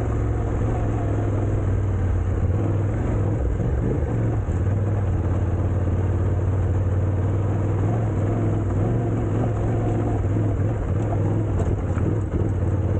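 A vehicle engine running at a steady pace with a constant low hum and no revving, over a rumbling haze of road or wind noise.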